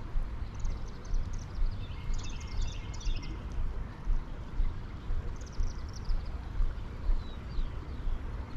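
Outdoor creek-side ambience: a low, gusting rumble of wind on the microphone over flowing creek water, with a small bird chirping in short bursts several times.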